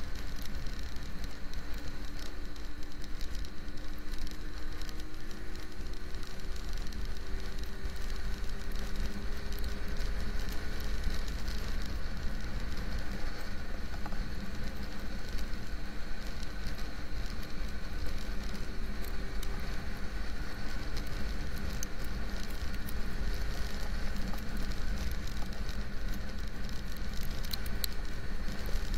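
Motorcycle ridden at highway speed in the rain: steady wind rumble on the microphone under an engine note that climbs slowly in pitch over the first ten seconds or so, with scattered ticks of raindrops hitting the camera.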